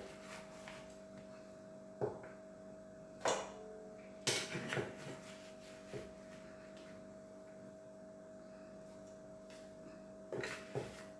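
A spoon knocking and scraping a few times against a mortar and bowl as pounded palm fruit pulp is scooped out, over a steady low hum.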